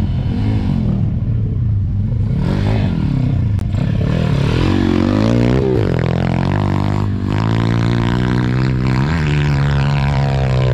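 Small four-stroke single-cylinder pit bike engine being ridden, its revs swinging up and down. Around the middle it climbs in pitch, dips briefly, then holds at steady high revs.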